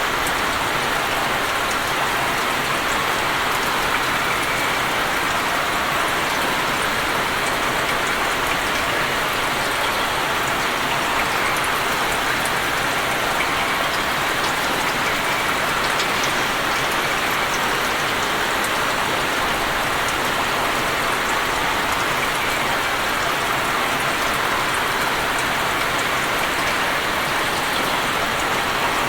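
Rain falling on open water: a steady, even hiss of many drops striking the surface, with faint ticks of single drops.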